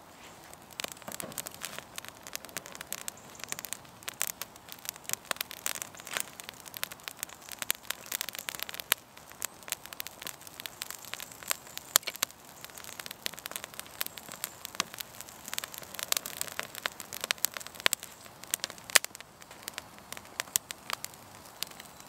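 Campfire crackling as small twigs catch over split wood: a dense, irregular run of sharp snaps.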